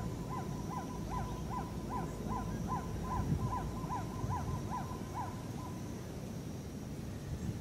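A bird calling a steady series of short, evenly spaced notes, about two and a half a second, that stops about five seconds in. A faint steady high hum and low wind rumble lie underneath.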